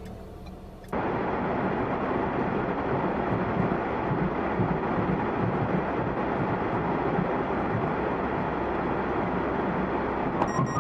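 Steady driving noise of a moving vehicle, engine and road together. It starts abruptly about a second in and holds even after that.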